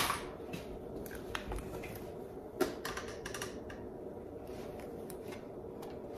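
Irregular light clicks and taps of plastic sewing clips and fabric being handled at a sewing machine, with one sharper knock about two and a half seconds in, over a steady low hum.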